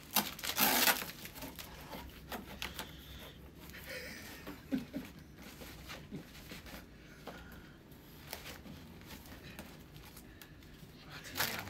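Paper and cardboard rustling and crinkling as packing paper is pulled out of a cardboard box. A louder rustle comes in the first second, then small scattered rustles and clicks, and another burst near the end.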